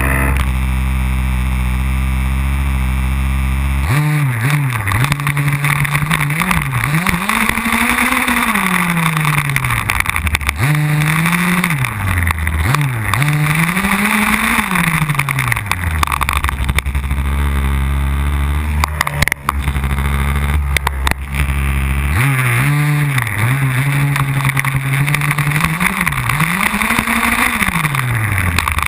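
HPI Baja 1/5-scale RC buggy's small gasoline engine, heard from a camera mounted on the car. It idles steadily for about four seconds, then revs up and down again and again as the car drives, drops back to idle for several seconds midway, and revs repeatedly again before settling to idle near the end.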